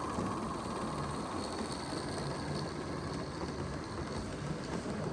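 Large-scale live-steam model locomotive running with a train of loaded coal wagons: a steady hiss with a few faint clicks from the wheels on the track.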